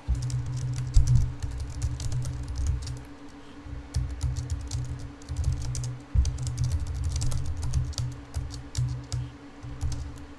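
Typing on a computer keyboard: key clicks come in quick, irregular runs with short pauses, over a steady low hum.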